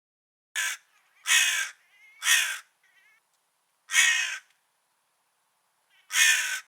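Crow cawing: five harsh caws, the first short, three in quick succession, then after a pause of over a second one more near the end, with a few faint softer calls in between.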